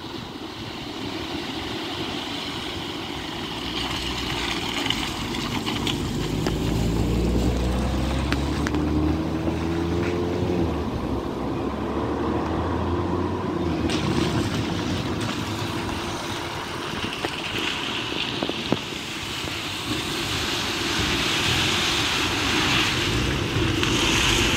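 Cars driving through a shallow flooded road ford, with water splashing and hissing around the tyres. About a quarter of the way in, one car's engine revs up with rising pitch as it climbs out past close by; near the end another car idles alongside before entering the water.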